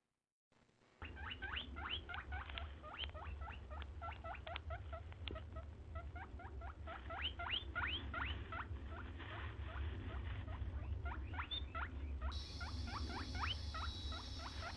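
Hedgehog squeaking: a long run of quick rising chirps, several a second, over a low hum, starting about a second in. A steady high hiss joins near the end.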